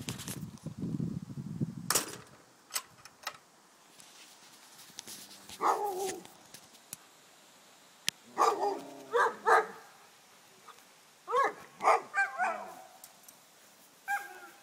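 Alaskan malamutes barking in short bursts of pitched, yodel-like barks, starting a few seconds in and coming in clusters, after a couple of seconds of rustling at the start.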